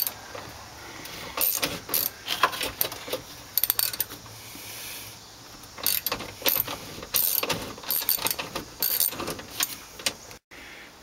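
Hand tools and bolts clinking and clanking on metal at irregular moments, some in quick clusters, while the steering column support is unbolted from a 1966 Ford Mustang.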